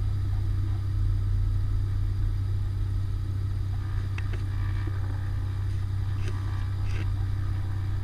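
Cessna 210 Centurion's piston engine running steadily at low power, heard inside the cabin as an even low drone, with a few faint ticks.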